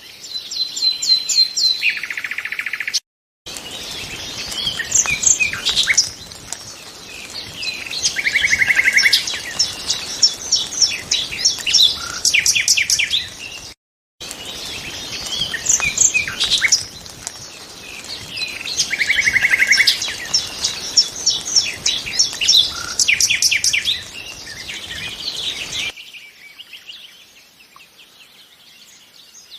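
Nightingale singing: varied phrases of rapid repeated notes, whistles and buzzy trills. The sound cuts out completely twice for a moment, and the song grows quieter near the end.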